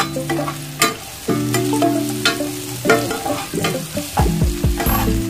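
Vegetables sautéing in oil in a frying pan, stirred with a spatula that clicks and scrapes against the pan, over a faint sizzle. Steady held tones sound underneath.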